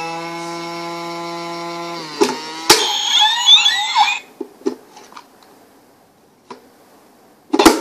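Electronic piggy bank toy's speaker holding a steady electronic tone for about two seconds, which dips in pitch as it stops. Two clicks and a second and a half of warbling electronic sound follow, then a few faint clicks and a loud knock of handled plastic near the end.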